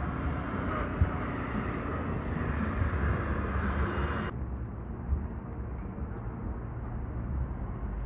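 City street ambience in a snowstorm: a steady low rumble of wind and traffic, with a rising hiss like tyres on slushy road that cuts off suddenly about four seconds in.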